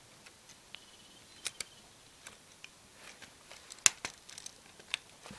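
A few faint, scattered clicks and taps of Lego Technic plastic parts being handled and pressed together, the sharpest a little before four seconds in.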